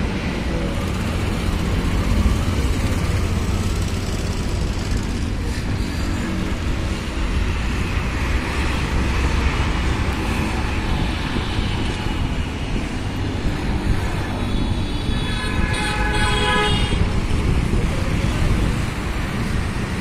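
Steady road traffic noise with the low rumble of motorcycle and car engines. A vehicle horn sounds for under two seconds a little over three quarters of the way through.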